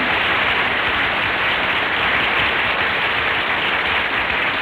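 Studio audience applauding steadily, heard through a dull, band-limited old radio transcription.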